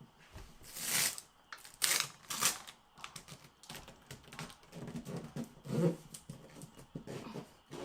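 Irregular taps, clicks and short rustles from handling peel-and-stick vinyl backsplash tiles, with a few louder rustling scrapes in the first few seconds.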